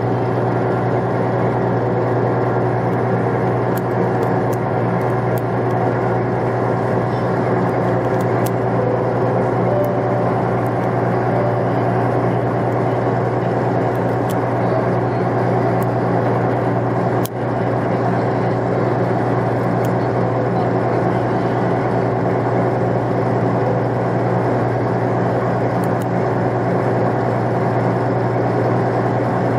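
Cruise boat's engine running with a steady low drone, heard on board while under way.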